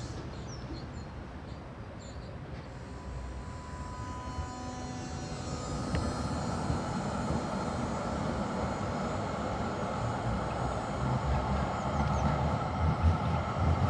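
Duewag GT10NC-DU tram passing close by, with a low rumble of wheels on the rails and a steady whine. It grows louder from about four seconds in.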